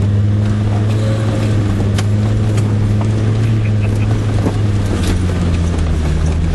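A 4x4's engine running with a steady low drone, heard from inside the cab as it drives slowly along a rough forest track, with occasional sharp clicks and knocks over it.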